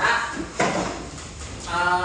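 Classroom clatter of short knocks and scrapes. Near the end a voice begins a held, sung note.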